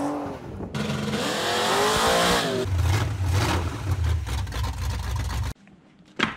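V8 engine revving, rising in pitch and then running with a deep, heavy rumble before cutting off suddenly about five and a half seconds in; a single click near the end.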